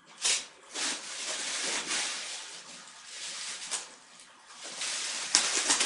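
Bubble wrap rustling and crinkling as a wrapped laptop is handled and its taped ends are pressed down, in irregular bursts with a louder spell near the end.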